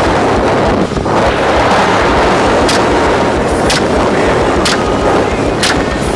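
Gunshots fired from a helicopter: four sharp shots about a second apart, starting about halfway through, over the steady loud noise of the helicopter's rotor and wind.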